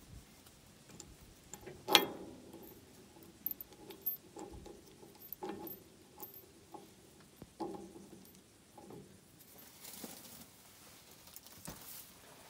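Scattered clicks and taps of hands working a hydraulic hose fitting on a bulldozer's blade ram, with one sharp clink about two seconds in.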